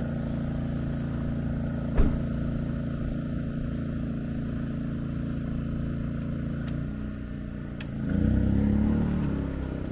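Steady engine hum running throughout, with a single sharp knock about two seconds in and a louder whir that rises and falls in pitch between about eight and nine and a half seconds.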